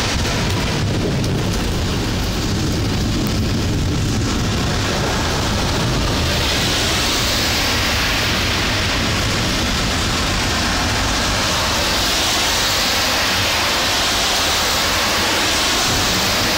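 Heavy rain falling in a thunderstorm, a steady hiss that grows louder about six seconds in, over a low rumble.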